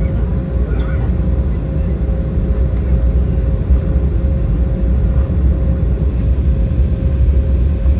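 Embraer 190 cabin noise while taxiing: a steady low rumble from the twin jet engines at taxi power and the airframe rolling along the taxiway, with a faint steady hum over it.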